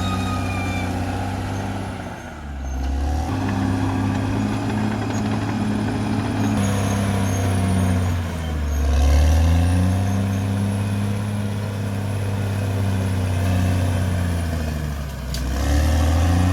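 Caterpillar D6R XL bulldozer's diesel engine running hard, a steady low drone. Its pitch sags and recovers three times: about two seconds in, near the middle and near the end.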